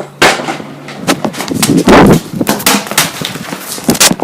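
A rapid, irregular series of loud bangs and clatters, with the loudest, heaviest burst about two seconds in.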